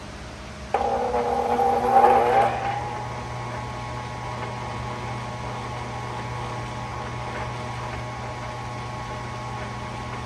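Motor-driven 23-inch antique wet grindstone switching on about a second in, loudest for the first couple of seconds as it comes up to speed, then running smoothly with a steady hum.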